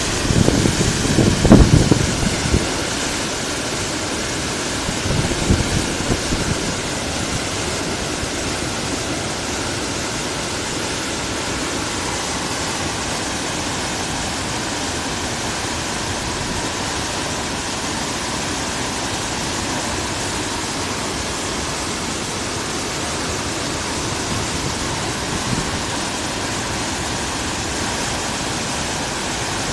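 Typhoon-swollen river in flood, its fast water rushing in a steady, even noise. Gusts of wind buffet the microphone in the first few seconds and again briefly a few seconds later.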